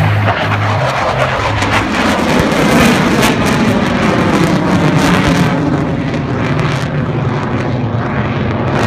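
F-22 Raptor fighter jet flying past overhead. Its twin jet engines make a loud, crackling roar whose pitch falls as it goes by. Music from the loudspeakers fades under the jet noise at the start.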